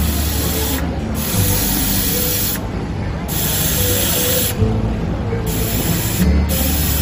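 Gas hissing from a helium cylinder's filling nozzle into a foil balloon. It comes in stretches of a second or so, cut off briefly several times as the valve is opened and closed.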